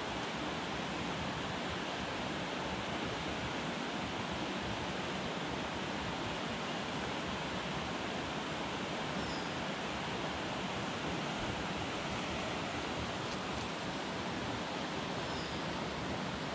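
Steady, even rush of flowing river water, unchanging throughout, with a couple of faint short chirps.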